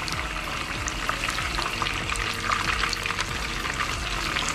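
Whole fish frying in plenty of oil in a frying pan on a portable gas stove: a steady sizzle full of small pops and crackles.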